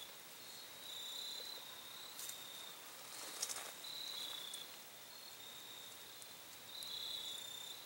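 Insects chirping in a field: short, high, steady trills that start and stop over and over above a faint outdoor hiss, with a brief faint rustle about three and a half seconds in.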